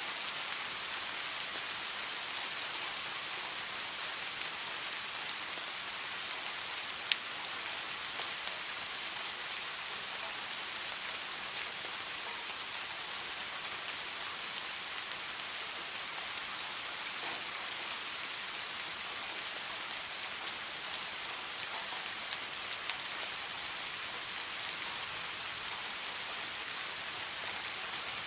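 Steady rain falling, an even hiss of many small raindrops with scattered individual drop ticks; one sharper, louder drip strikes about seven seconds in.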